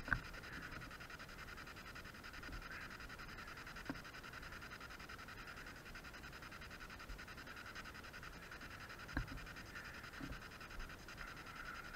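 Faint steady hiss with soft rubbing and a few short knocks, the loudest about nine seconds in: handling noise from a handheld action camera being moved about.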